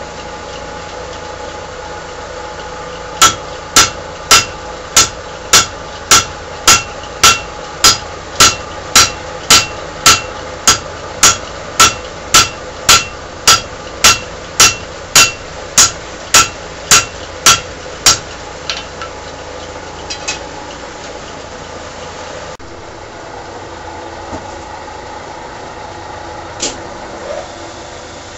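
A hand hammer striking hot steel on an anvil, an even run of some two dozen blows at about two a second, each leaving a short metallic ring, then a few lighter taps before it stops. A steady motor hum runs underneath.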